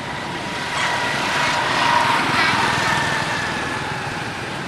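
A small-engined motor vehicle passing on the road: its engine noise swells about a second in, is loudest around two seconds, then fades away.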